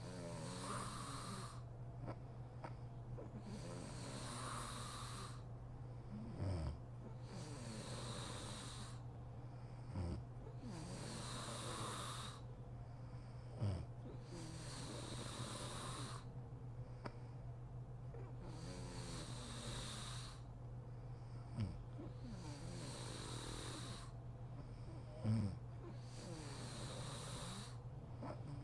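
A sleeping woman snoring: slow, noisy breaths about every three to four seconds, five of them ending in a short, loud, low snore.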